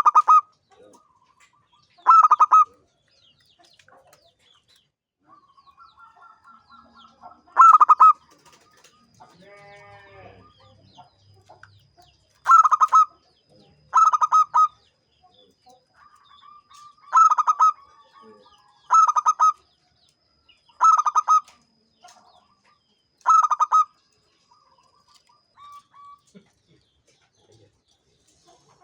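Zebra dove (perkutut) cooing: about nine loud, short, rapidly rolling coo phrases, with softer trilling notes between them. A different, lower call comes about ten seconds in.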